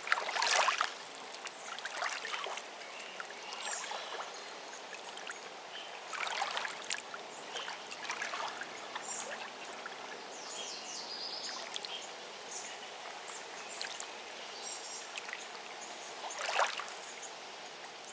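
Small waves lapping and splashing against a shoreline, with irregular splashes, the louder ones about a second in, around the middle and near the end.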